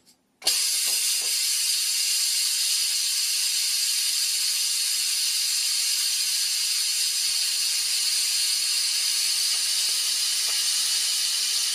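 Steam jetting out of a Crock-Pot Express multi-cooker's steam release valve during a quick pressure release. A loud, steady hiss starts abruptly about half a second in and keeps an even level as the built-up pressure vents.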